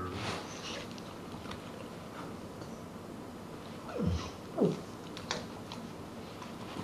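A Dogue de Bordeaux–Rottweiler cross gives two short vocal sounds, each sliding quickly down in pitch, about four seconds in and again half a second later.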